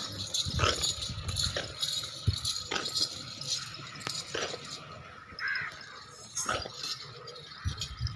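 Goat pen ambience: scattered knocks and rattles of animals moving about, with a short high call about five and a half seconds in.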